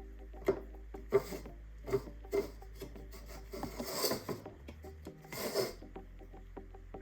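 Parts of a coffee machine being handled and fitted during setup. There are a few sharp knocks in the first couple of seconds, then two longer scraping rubs, over soft background music.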